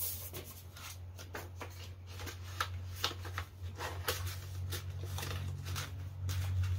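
Paper banknotes and a clear plastic binder envelope rustling and crinkling in irregular short strokes as hands count and tuck the bills into the pocket, over a steady low hum.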